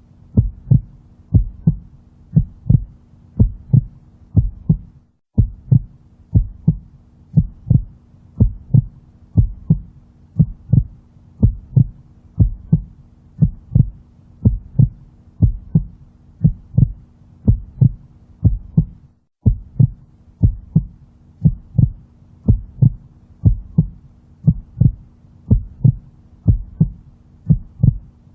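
Heartbeat sound played as womb-like noise: a steady rhythm of low double thumps (lub-dub), a little under one and a half beats a second, over a faint steady hum. The sound cuts out for an instant twice, about five seconds in and about nineteen seconds in.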